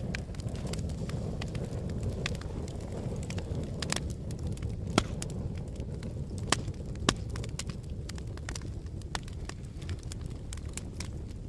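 Wood fire crackling, with irregular sharp pops, a few louder ones near the middle, over a steady low rumble of blowing wind.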